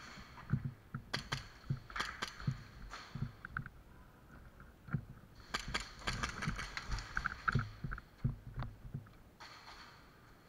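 Footsteps on a concrete floor and rustling of clothing and gear as an airsoft player moves, with several sharp clicks among them, the busiest stretches about a second in and again around the middle.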